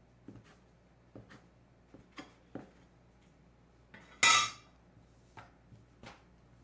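Kitchen work sounds: light taps and knocks of dishes and utensils, with one loud, brief clatter about four seconds in.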